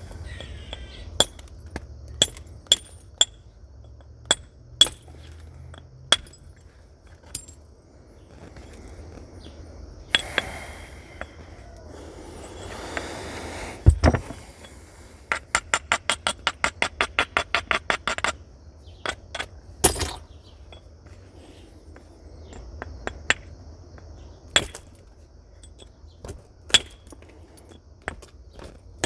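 Flint being knapped with natural tools: sharp stone clinks from single strikes on the nodule, a stretch of gritty scraping that ends in a hard blow about fourteen seconds in, then a quick run of about five sharp taps a second for around three seconds.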